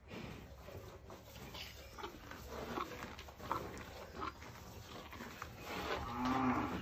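A cow breathing and sniffing right against the microphone: irregular puffs of air through her nostrils, with a louder, longer exhale near the end.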